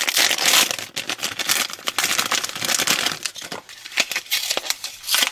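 Foil-and-plastic blind bag crinkling as it is torn open by hand, with dense, sharp crackles, then the crinkly paper wrapping of the capsule inside being handled near the end.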